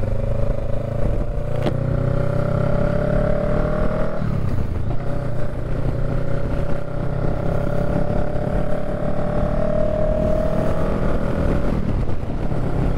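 Honda Rebel 500's parallel-twin engine accelerating through the gears. Its note rises steadily, drops about four seconds in at an upshift, climbs again for several seconds and drops once more with another upshift near the end.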